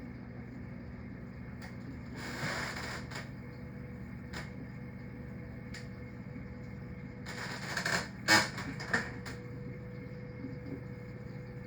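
Steady low hum of reef aquarium equipment running, broken by two brief rustling bursts of noise and a few sharp clicks, the loudest of them a little past the middle.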